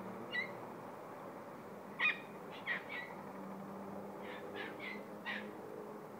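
A series of short, high-pitched animal calls, about eight in all, coming singly and in small clusters, over a faint steady background.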